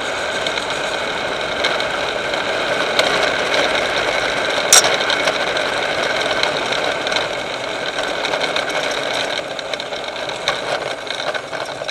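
A vehicle engine running steadily at low revs, heard from inside the cab, with a constant mechanical whine. A single sharp click about five seconds in.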